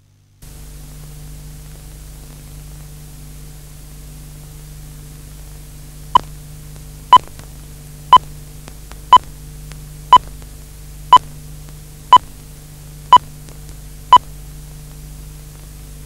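Steady hiss with a low hum, then nine short, identical electronic beeps, one a second, starting about six seconds in.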